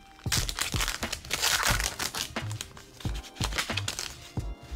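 Foil Pokémon booster-pack wrapper crinkling as it is handled and torn open, with a denser crackle about a second in. Background music with a steady beat runs underneath.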